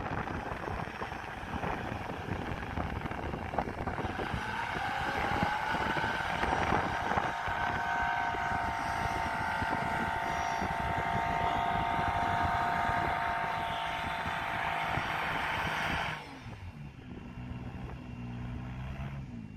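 Off-road 4x4's engine revving up about four seconds in and held steady at high revs, then cut off suddenly near the end by a lower, rougher engine note.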